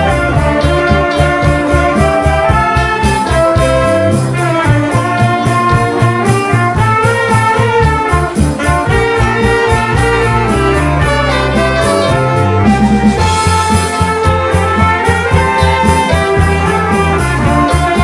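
Amateur band playing live: trumpets and saxophone carry the melody over keyboard and electric bass, with a steady beat.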